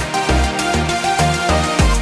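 Electronic background music with a steady beat and a pulsing bass line.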